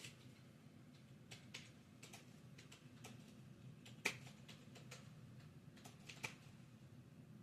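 Near silence with a low steady hum and faint, irregular small clicks and taps, the sharpest about four seconds in.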